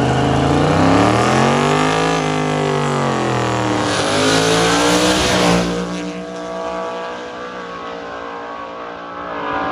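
Twin-turbo 5.0 Coyote V8 drag car's engine revving, its note rising and falling over the first few seconds, with a loud rushing noise from about four to five and a half seconds in. After that the engine note is lower, quieter and steadier.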